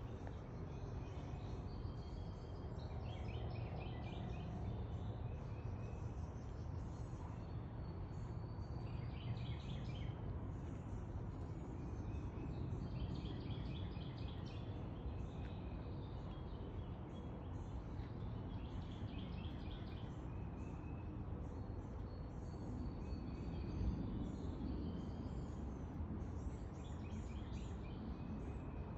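Outdoor backyard ambience: a steady low background noise, with small birds calling and singing in short bouts every few seconds.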